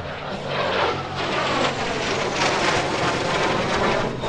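CF-18 Hornet fighter jet passing the crowd, its twin GE F404 turbofan engines making a loud, sustained jet roar that builds about half a second in, with a falling pitch as it goes by.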